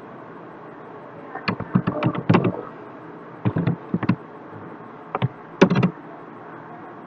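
Computer keyboard being typed on: quick clusters of key clicks in three or four bursts over a steady background hiss.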